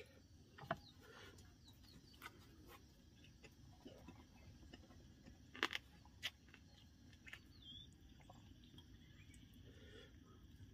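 Near silence with a faint outdoor background: a few short bird chirps and a handful of soft clicks and knocks, the sharpest about five and a half to six seconds in.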